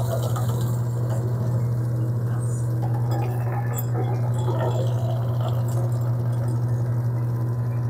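Electric pasta-rolling machine running with a steady, unbroken low hum as the dough sheet is passed through its rollers.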